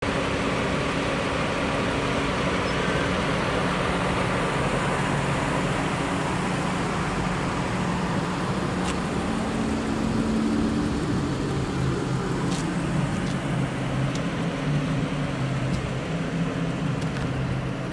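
Steady hum of vehicle engines and road traffic, with low engine tones that rise and fade now and then, and a few faint ticks.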